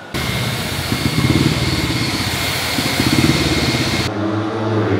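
Speedway motorcycles' 500 cc single-cylinder methanol engines running loud, with pulsing low engine tones. About four seconds in the sound changes abruptly to a lower, steadier engine sound.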